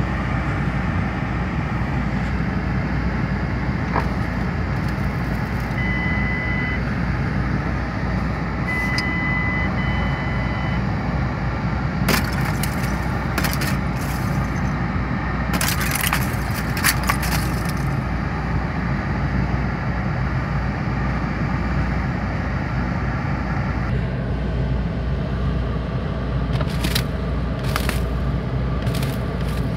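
Thick freezing-rain glaze on a car side window cracking and crackling as a snow brush presses and knocks on the glass from inside. The cracks come in clusters of sharp clicks about halfway through and again near the end, over a steady low rumble.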